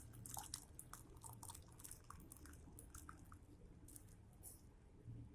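Near silence, with faint scattered light clicks and ticks from a strainer and kitchen utensils as kadha is strained into a cup, over a low steady hum.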